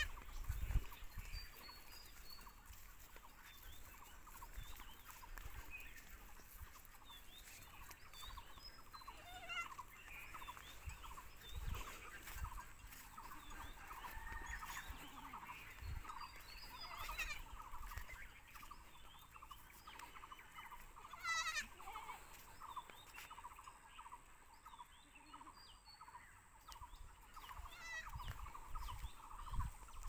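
Open farmland: many scattered bird chirps and clucking calls, with a few louder wavering calls standing out and occasional low thumps.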